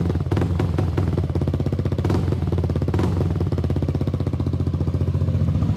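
Yamaha Aerox 155 scooter's single-cylinder engine running steadily at about 3,000 rpm through a newly fitted aftermarket RS8 Redlock muffler, with a smooth, full exhaust note.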